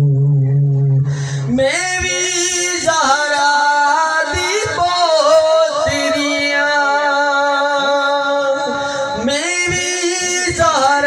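A man singing a mourning elegy through a microphone, holding long, wavering notes in drawn-out phrases.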